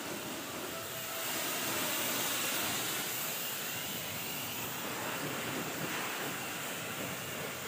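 Pressure washer spraying water in a steady rushing hiss, swelling a little about a second in.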